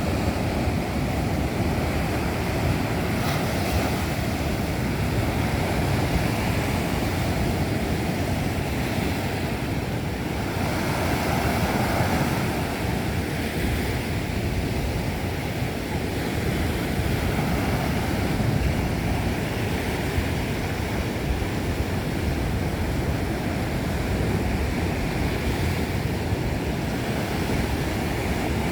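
Ocean surf washing onto a beach: a continuous roar of breaking waves that swells and eases every few seconds.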